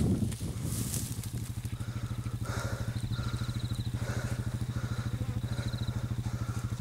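An engine idling with a steady, even pulse.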